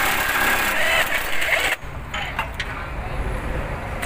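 Impact wrench running on an underbody bolt of a car, cutting off suddenly about two seconds in. A few light clicks follow.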